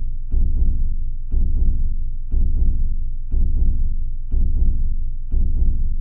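Slow heartbeat: a steady lub-dub, two low thumps a quarter second apart, about once a second, six beats in all.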